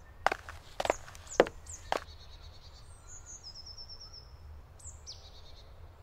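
Songbirds singing in woodland, with high chirps and a rapid trill. In the first two seconds four sharp knocks like footsteps come about half a second apart, over a faint low rumble.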